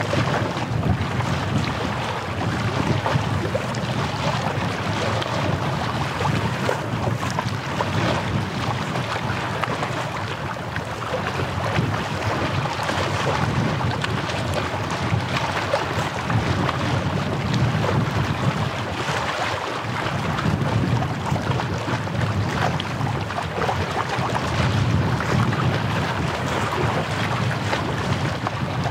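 Wind rushing over the microphone, with the wash of small waves on the shore underneath; steady and fluctuating.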